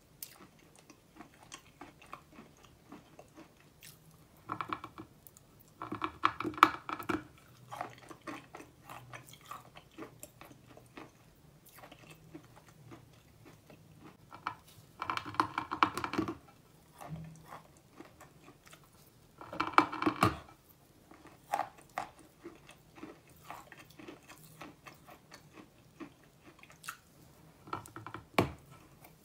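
Chewing a mouthful of chalk bitten from a large block, with several louder crunching bursts as it is ground between the teeth, and a sharp bite into the block near the end.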